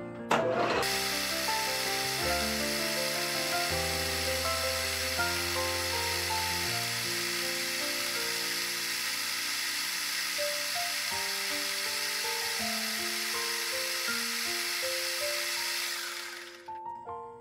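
Metal lathe started with a sharp clunk about half a second in, its spindle then running with a steady hissing whir while a cloth polishes the spinning stainless steel rod, until it stops near the end. Gentle background music with sustained piano-like notes plays throughout.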